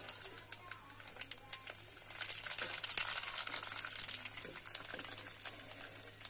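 Puris deep-frying in hot oil in an iron kadhai: steady sizzling with many sharp crackles and pops, busiest around the middle as the puris are turned with a wire skimmer.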